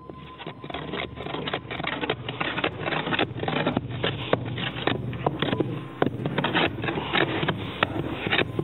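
Wooden hand rammers tamping earth inside wooden rammed-earth (tapial) formwork: a steady run of dull thuds, about three a second, as the soil is compacted layer by layer.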